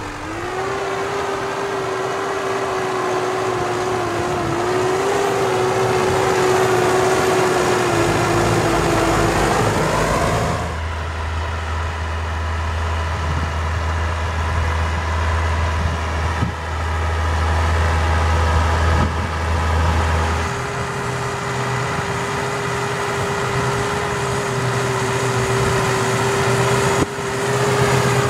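Farm tractor diesel engines working a field, running steadily with a high whine over the engine note. About ten seconds in the sound switches abruptly to a deeper, heavier drone. About twenty seconds in it switches back to the whine.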